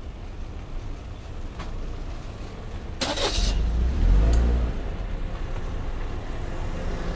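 A car passes close by on the street: a short burst of hiss about three seconds in, then its engine's low rumble, loudest about four seconds in, settling back to a steady low traffic hum.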